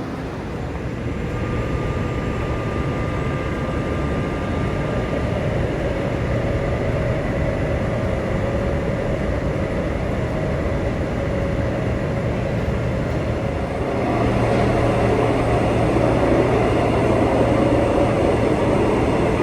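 A train running, a steady rumble that gets louder about fourteen seconds in.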